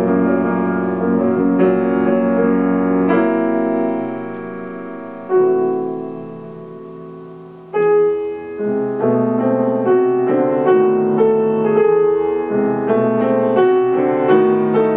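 Solo grand piano playing: held chords that die away over a few seconds, a single chord struck about five seconds in, then from about eight seconds a recurring figure of repeated notes and chords.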